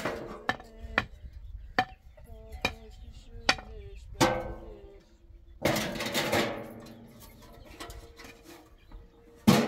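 A round metal tray knocked and clanked repeatedly, each knock ringing briefly, about one a second; about six seconds in it rattles and clatters louder for a second or so.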